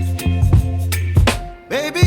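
Background music with a steady beat and a deep bass line; it drops away briefly near the end and comes back in with a sliding melody.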